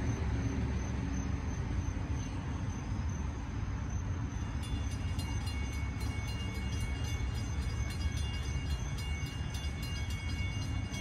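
Railroad grade-crossing warning bells ringing in a steady repeating rhythm over a low rumble; a brighter, fuller ringing joins about four and a half seconds in.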